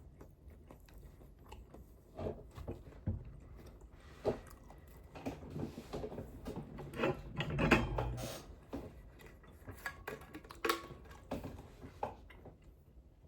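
Close-miked chewing and biting of food: irregular wet mouth clicks and short crunches, busiest and loudest in the middle.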